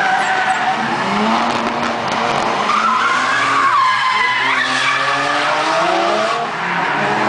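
Drift car sliding through a turn: its engine revs up and down over the screech and hiss of its spinning rear tyres, with the pitch swinging sharply around the middle.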